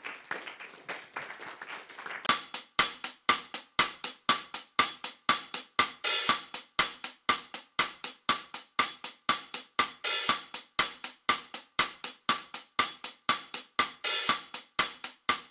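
Brief applause fading out, then closing music with a fast, even drum beat of hi-hat and cymbal hits that comes in about two seconds in.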